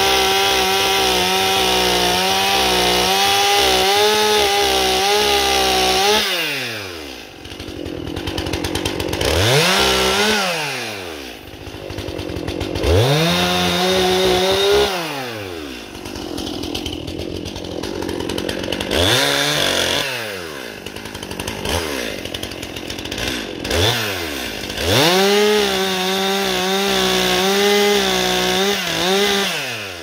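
Stihl MS 261 C-M chainsaw's two-stroke engine free-revving with no wood being cut: the engine is opened up to full throttle and held for about six seconds, then drops back to idle. It is revved again about five more times, in two short runs, two quick blips and a last full-throttle run of about four seconds, as the M-Tronic engine management is being adjusted.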